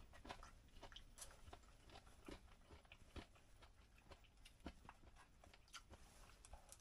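Faint eating sounds: a person chewing, with scattered soft clicks of chopsticks against a lunch box.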